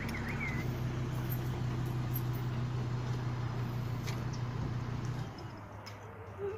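Pickup truck engine idling with a steady low hum that stops about five seconds in.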